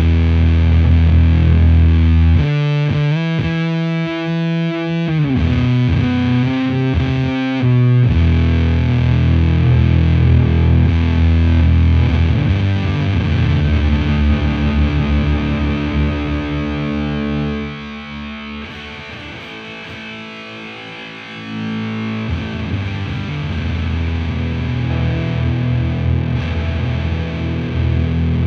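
Electric guitar (Fender Strat) played through a Devi Ever Big Distortion Sound Machine fuzz pedal into a Laney VC30 amp: heavy fuzzed riffing with a clearer picked passage a few seconds in and a quieter, thinner stretch past the middle.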